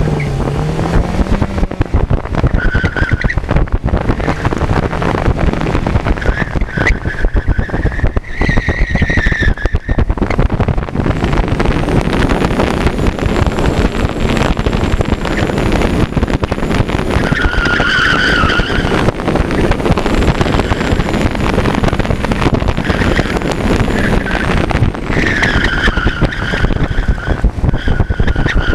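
Honda S2000's 2.2-litre four-cylinder engine running through a fast autocross run, heard from the open cockpit with a loud rush of wind and road noise. Tires squeal through the corners several times, briefly at first, then longer, with the longest squeal near the end.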